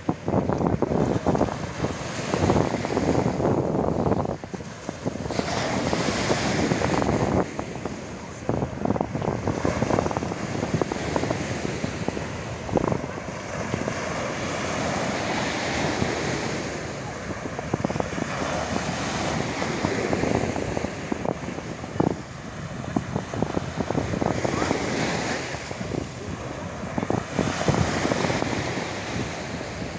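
Sea surf breaking and washing up the beach, swelling every few seconds, with wind buffeting the microphone.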